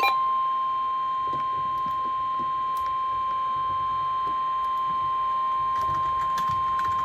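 NOAA Weather Radio's 1050 Hz warning alarm tone: one steady, unbroken high-pitched beep announcing a new warning broadcast. It follows the digital SAME header bursts, which cut off at the very start.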